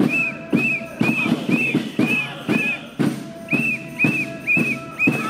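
Handheld percussion beaten in a steady rhythm of about two strokes a second, each stroke a sharp knock with a short high chirping note. The beat breaks off briefly about three seconds in, then resumes.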